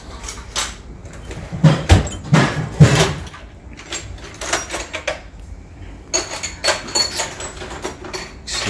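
Irregular knocks, clunks and clicks of handling, with a few heavier thuds about two to three seconds in and lighter clinks near the end.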